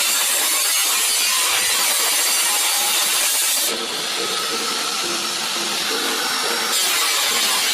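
Power tool cutting through car-body sheet metal, running steadily, with a brief drop in level about four seconds in.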